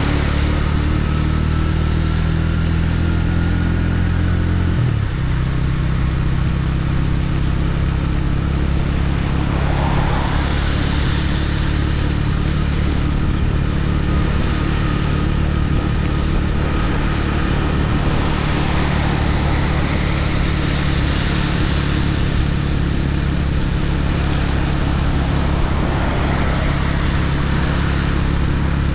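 Motorcycle engine running steadily, heard from the rider's seat over wind and road noise. The engine note shifts about five seconds in, then holds even.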